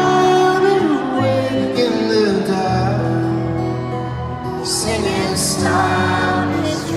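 A man singing live to a strummed and fingerpicked acoustic guitar, with sustained bass notes under the vocal line, heard in a large arena.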